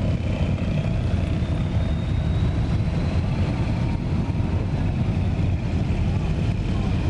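Vehicle engines running steadily, a deep rumble with a faint high whine that rises slowly in the first few seconds.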